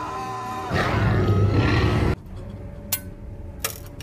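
Film soundtrack: a Tyrannosaurus rex roar from the movie's sound design over orchestral music, cut off abruptly about halfway through. After the cut it is quieter, with a few sharp clicks and a faint steady tone.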